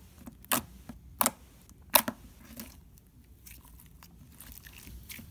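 Slime being squeezed and kneaded by hand, making sharp clicks, three loud ones in the first two seconds, then fainter ones.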